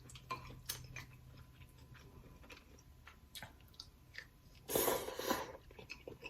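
Close-up eating sounds from a mukbang meal of spicy ramen and seafood: soft chewing with scattered wet mouth clicks, then a louder noisy burst lasting about a second, roughly five seconds in.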